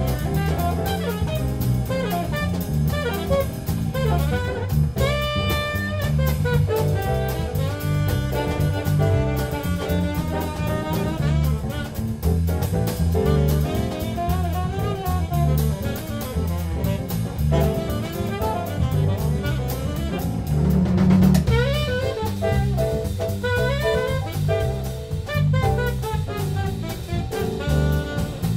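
Live jazz quartet playing a samba: alto saxophone playing the lead line over piano, double bass and drum kit, with steady cymbal time. One louder crash comes about three-quarters of the way through.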